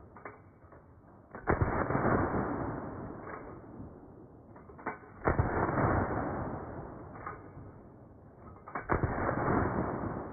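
Winchester 1873 lever-action rifle in .32 WCF (.32-20), fitted with a short-stroke kit, fired three times about three and a half seconds apart, each shot echoing and fading out. Fainter clicks of the lever being worked come just before each shot.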